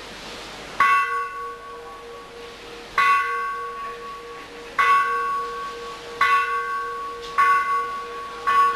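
A temple bell struck six times, each stroke ringing on and fading, the strokes coming closer and closer together, over a steady hum.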